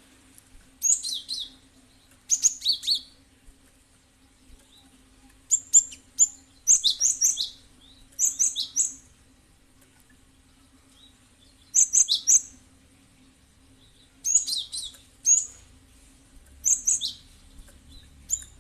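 Cinereous tit (gelatik batu) calling in short bursts of sharp, high chirps, with pauses of a second to a few seconds between bursts. The calls are used as a lure to set other birds of its kind calling back.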